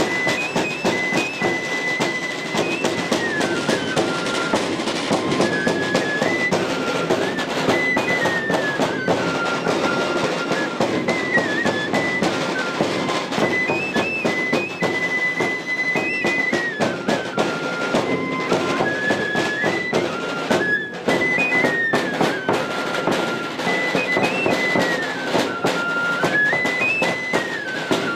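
Live dance music: a high, flute-like melody plays a short stepping tune over and over above dense drumming.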